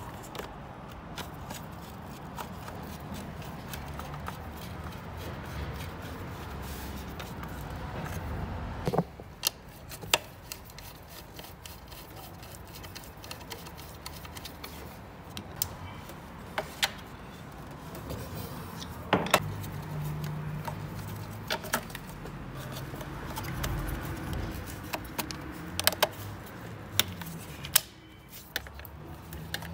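Sharp metallic clicks and clinks of hand tools and fittings, a dozen or so spread irregularly, as a diesel fuel filter and its mounting are fitted in the engine bay, over a low steady workshop background.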